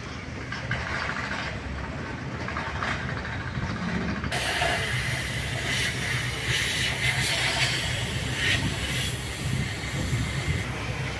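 Steady low rumble of railway station surroundings, with hiss. About four seconds in the sound changes abruptly to a brighter, hissier stretch with scattered light ticks.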